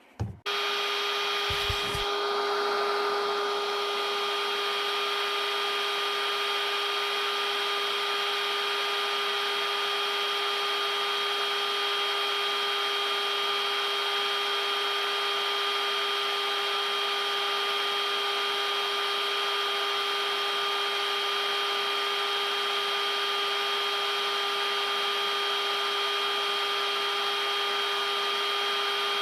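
Heat gun blowing steadily, a constant fan whine over a rush of air, used to heat the gearbox case so a bearing can be fitted. It switches on abruptly just after a couple of low knocks.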